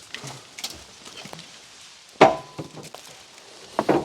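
Firewood chunks knocking as they are tossed and handled: one loud knock with a short ring about two seconds in, a quick double knock near the end, and light clatter between.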